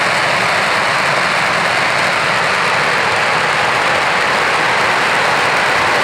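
A mega string of about two million large firecrackers going off. The bangs come so fast that they merge into one steady, intense noise without a break.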